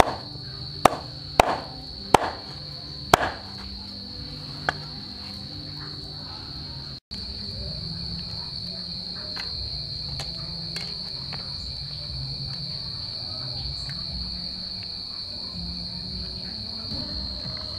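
Cleaver chopping crocodile tail on a wooden board, about six sharp chops in the first five seconds, then stopping. Under it runs a steady high drone of insects.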